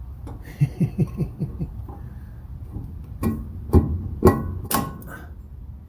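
A quick run of short, low pitched notes, then four sharp metal clanks, hand tools knocking on a stuck bearing on a John Deere 3300 combine's shaft as it is worked to pull it off.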